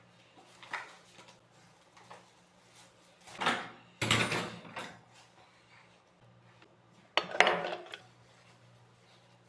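Hard household items clinking and knocking as they are handled and put away, in a few separate bursts: a short clink about a second in, a longer clatter from about three and a half to five seconds, and another near seven seconds. A faint steady hum sits underneath.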